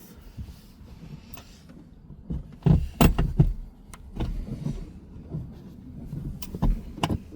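Several knocks and clunks of a seat and its metal mounting rails being shifted and jostled to line up the bolt holes: a cluster about three seconds in and a few more near the end.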